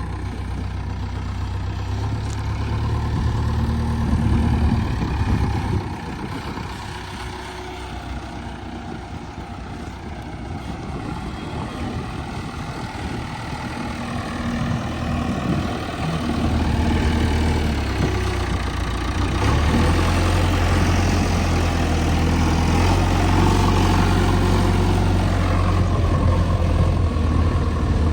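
JCB 3DX backhoe loader's diesel engine running, its note swelling and easing: louder in the first few seconds, quieter for a while, then louder again through the second half.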